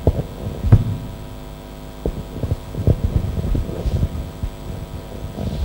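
Handling noise on a handheld microphone: irregular soft knocks and rubs as cloth is wrapped around the wrist of the hand holding it. Under it runs a steady mains hum.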